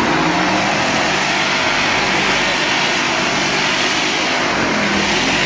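Vehicle engines running hard under load as a stuck truck is towed out of mud, over a steady rushing noise. The engine pitch swells and falls near the start and again near the end.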